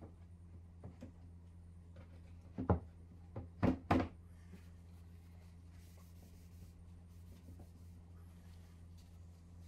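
Wood knocking on wood as a frame is worked into place by hand on a workbench: a handful of sharp knocks a few seconds in, four of them close together. Soft scratchy rubbing follows, over a steady low hum.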